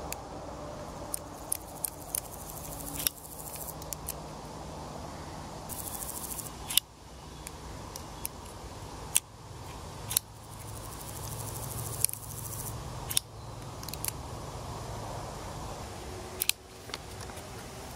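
Crossbar-lock folding knife being flicked open and shut again and again: about ten sharp metallic clicks at uneven intervals as the blade swings out and the lock bar snaps into place.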